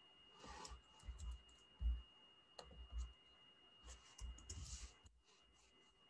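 Irregular clicking and tapping on a computer keyboard and mouse, with a few soft thumps on the desk, stopping about five seconds in.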